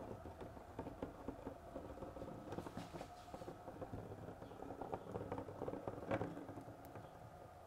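Faint scratching and light irregular ticking as Timebond contact adhesive is spread along the track bed with a small applicator, over a faint steady hum.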